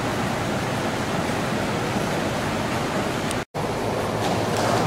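Steady, even hiss of background noise, cut off for a moment about three and a half seconds in, with a couple of faint taps near the end.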